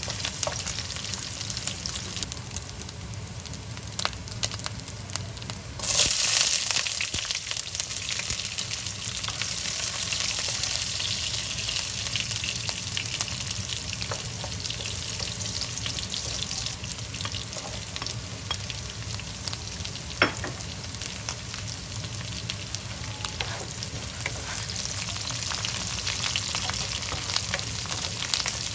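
Food frying in hot oil in a pan, sizzling steadily with scattered sharp pops. About six seconds in, the sizzle briefly surges much louder, then settles back.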